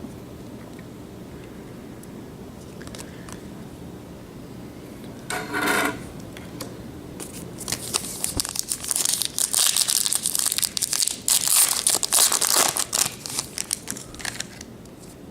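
Plastic wrapper of a Topps baseball card pack being crinkled and torn open, with a dense run of crinkling from about halfway through that lasts several seconds.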